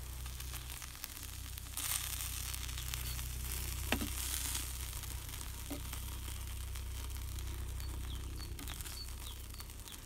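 Steak sizzling on the hot, oil-seasoned steel blade of an old military folding spade. The sizzle swells for a couple of seconds about two seconds in, with a few small pops, over a steady low rumble.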